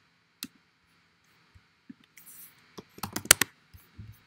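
Clicks and taps of a computer keyboard and mouse: one click about half a second in, then a quick run of several sharp clicks around three seconds in.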